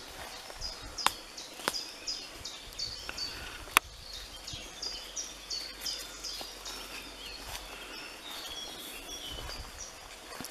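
A songbird singing a long run of quick, high chirps, several a second, over the quiet woodland background. A few sharp cracks of footsteps on dry leaf litter stand out, the loudest a little under four seconds in.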